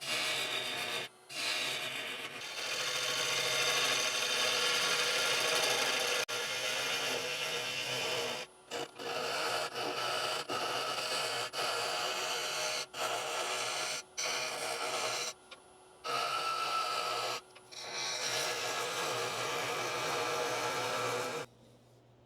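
Bowl gouge cutting into petrified oak spinning on a wood lathe, hollowing the inside of a bowl: a steady, loud rasping hiss broken by several short gaps. It stops suddenly about a second before the end.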